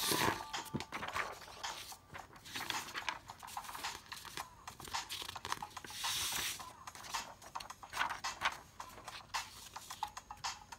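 Drawing strokes on paper: irregular scratchy rustles and small clicks, with a thump at the start and a longer scratch about six seconds in.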